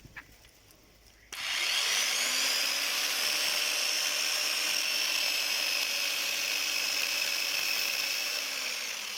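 A 16-inch electric chainsaw switches on about a second in and runs at steady full speed with a high whine, its pitch and level easing slightly near the end.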